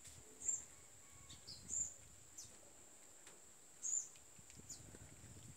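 Small birds chirping in short, high notes, with three louder chirps about half a second, just under two seconds and about four seconds in, and fainter chirps between them. A steady high-pitched whine runs underneath.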